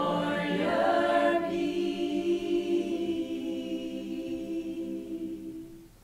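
Women's choir singing a cappella, ending a phrase on a long held chord that fades away near the end.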